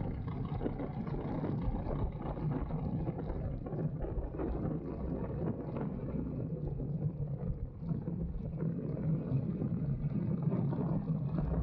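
Go-kart engine running steadily at speed around a track, with wind rushing over the microphone.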